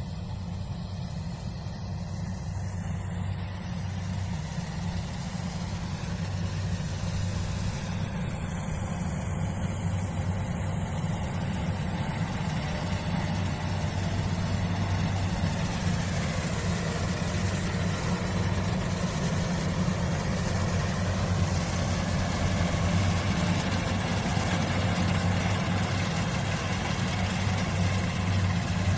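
Kubota combine harvester running while it cuts ripe rice: a steady engine hum with the noise of the cutting and threshing, growing gradually louder as the machine comes closer.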